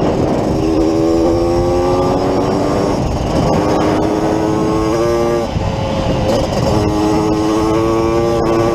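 Yamaha DT180's single-cylinder two-stroke engine under way, its pitch climbing in several pulls broken by gear changes, with a brief easing off a little past halfway. A heavy rush of wind noise runs underneath.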